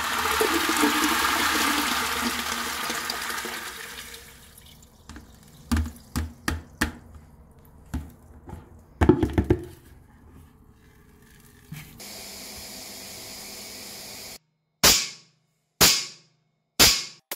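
Crushed scheelite slag poured into a water-filled steel chamber, splashing, followed by scattered knocks and clinks. Near the end, three sharp, loud cracks about a second apart: high-voltage discharges from the EPD Spark-2 electric pulse disaggregation unit shattering the slag.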